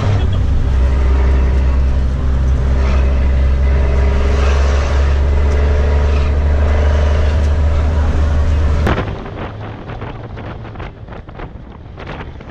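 Bus engine running while driving, heard inside the cabin as a loud steady low drone. About nine seconds in it cuts to a quieter stretch of road noise with quick irregular rattles and clicks.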